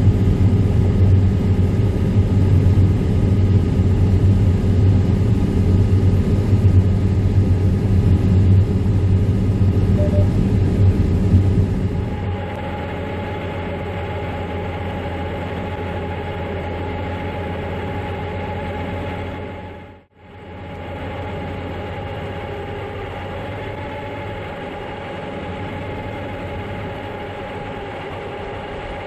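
Heavy harvest machinery running: a steady, loud, low engine rumble with a hum. About twelve seconds in it changes to a quieter, higher whine. The sound drops out briefly around twenty seconds in.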